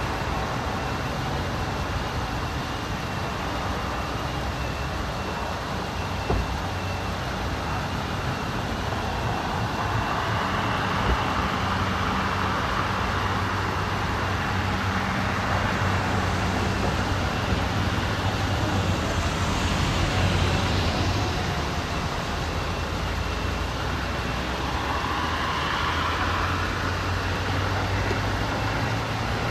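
Steady highway traffic noise, with vehicles swelling past now and then over a low hum.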